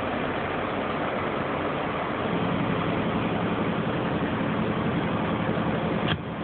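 BMW car engine idling, heard from inside the cabin as a steady hum; its low note grows a little stronger about two seconds in. A single click near the end.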